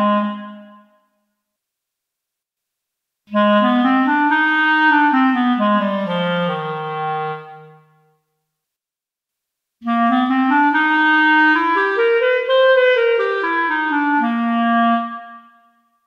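Sampled B-flat solo clarinet from the ReFX Nexus 4 software synth playing single-note melodic phrases. A phrase dies away at the start; after a pause of about two seconds a phrase steps up and back down, and after another pause a second phrase climbs higher and falls back. The notes are tuned to a non-Western microtonal scale set in the synth.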